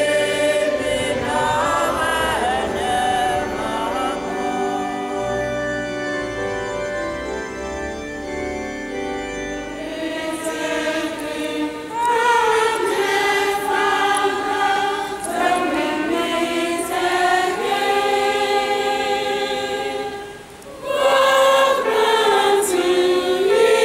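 A choir singing church music. The singing changes about ten seconds in, then breaks off briefly near the end and comes back louder.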